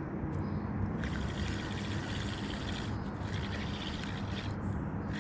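Steady rush of flowing floodwater from a high river, with a low steady hum underneath.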